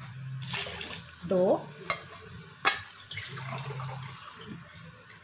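Water poured from a glass into a steel cooking pot of rice and chickpeas, splashing in twice, with two sharp clinks of the glass against the pot. A brief voice-like sound is heard about a second and a half in.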